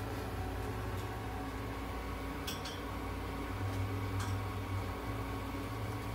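Steady low machine hum from the inhalation-therapy equipment running in the mist-filled cage, with a few faint light clicks about two and a half and four seconds in.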